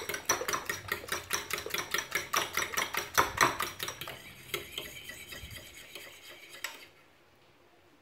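Metal fork beating eggs and water in a ceramic bowl, the tines clicking against the bowl in a rapid, even rhythm of several strokes a second. After about four seconds the strokes thin out and fade, stopping about seven seconds in.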